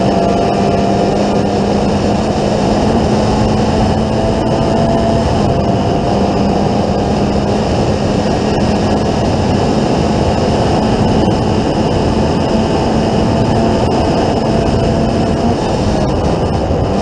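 Formula Ford 1600 race car's four-cylinder Ford Kent engine running at high, nearly steady revs under full throttle, heard from an onboard camera over a dense rush of wind and road noise.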